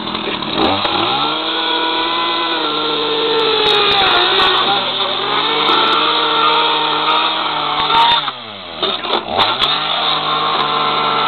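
Chainsaw motor speeding up within the first second. Its whine sags under load as the chain cuts into the plastic case of a portable CD player. It winds down about eight seconds in and speeds up again a second later, with sharp cracks of plastic on top.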